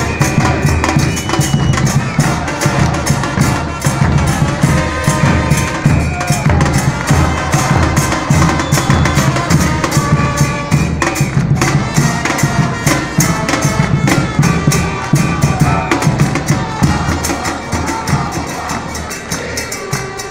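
Protest drumming: large bass drums (bombos) and other percussion beating a fast, steady rhythm among a marching crowd, easing off slightly near the end.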